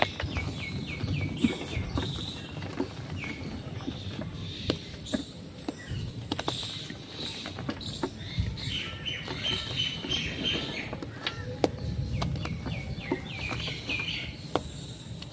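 Chalk being crushed and crumbled: a run of sharp crunches and crackles, with birds chirping in the background in short repeated bursts, near the start and twice later.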